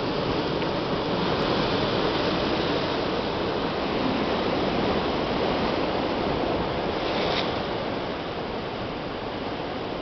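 Ocean waves crashing into a dead-end rock channel and splashing over the rocks: a continuous rushing wash that swells for several seconds, then eases off near the end.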